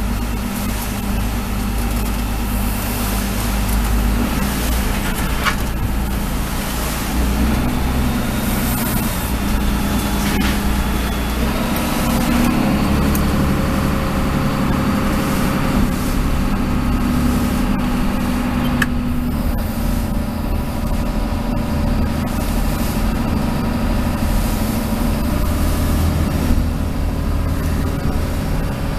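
Lobster boat's diesel engine running steadily underway, heard from inside the wheelhouse, with a few sharp clicks over it.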